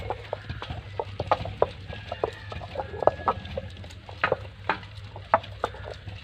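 Stone grinder in a round stone grinding basin, worked by hand to crush wet chopped banana flower: a run of short, irregular knocks and scrapes of stone on stone.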